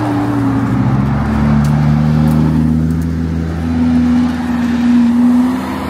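Supercars rolling past at low revs with a steady engine drone; a Lamborghini Revuelto's V12 is loudest as it passes close, about four seconds in.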